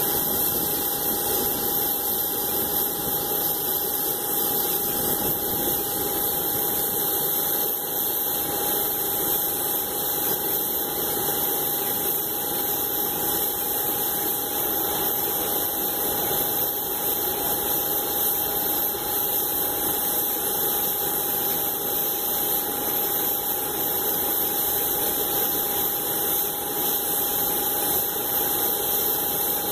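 Boeing 777-200's jet engines running at taxi power, a steady even rush with a constant whine and a thin high-pitched tone over it.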